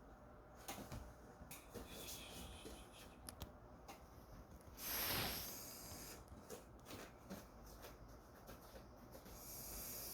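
Faint rustling and light clicks of small toy items being handled, with a louder hiss lasting about a second around five seconds in.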